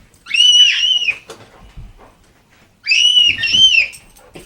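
A young child's very high-pitched screams: two short bursts about two and a half seconds apart, each a pair of rising-and-falling shrieks.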